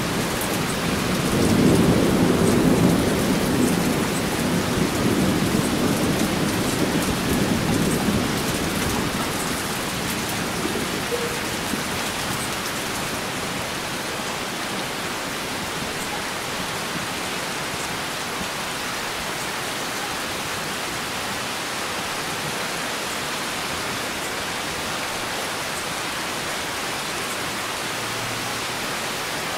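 Heavy rain falling steadily, with a long roll of thunder that swells about a second in, peaks soon after and fades away by about ten seconds in.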